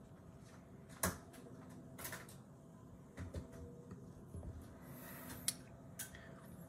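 Distant fireworks going off: a few scattered sharp pops, the loudest about a second in.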